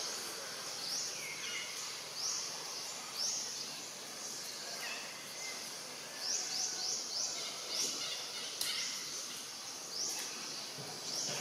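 Outdoor tree-canopy ambience: a steady high insect-like hiss with short, high, rising chirps repeated every second or so, sometimes in quick runs of three or four.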